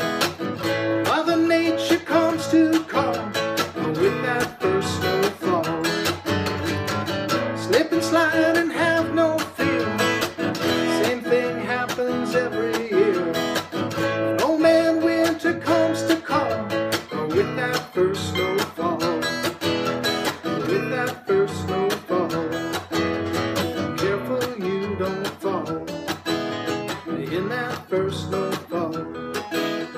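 Steel-string acoustic guitar strummed in a steady rhythm, the instrumental ending of a song.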